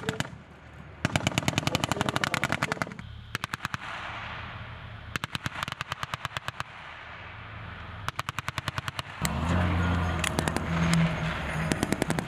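Automatic machine-gun fire in several bursts of about one to two seconds each, the rounds coming quickly, roughly ten a second. From about nine seconds in, the low steady sound of an armored vehicle's engine grows louder beneath the shots.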